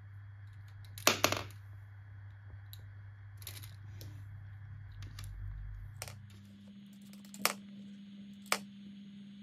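Plastic game discs clicking as they are dropped into the slots of a plastic four-in-a-row game grid: a sharp double click about a second in, then single clicks every second or two. A faint steady hum runs underneath.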